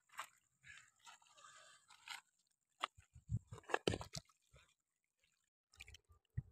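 Loose pebbles crunching and scraping in short, irregular bursts as a person shifts and stands up on a stony shore. The sound is faint.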